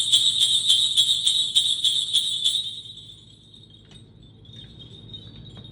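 Vintage Walberg & Auge sleigh bells shaken in a steady rhythm, about four jingles a second. The shaking stops about two and a half seconds in and the bells ring away, with a few faint tinkles after.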